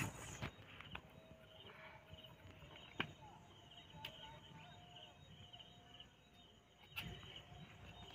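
Near silence: faint outdoor ambience with a few soft taps and knocks, the sharpest about three seconds in and another about seven seconds in.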